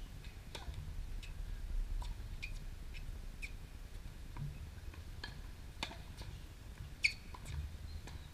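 Tennis rally on a hard court: sharp pops of racket strings striking the ball, the loudest about seven seconds in, mixed with short high squeaks of tennis shoes on the court surface.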